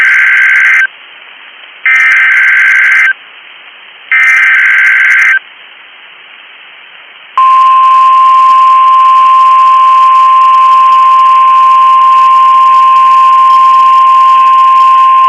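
Emergency Alert System activation on NOAA Weather Radio: three bursts of the SAME digital header, each a harsh warbling screech about a second long and about two seconds apart, then the steady single-pitched NOAA Weather Radio alert tone starting about seven seconds in and sounding to the end.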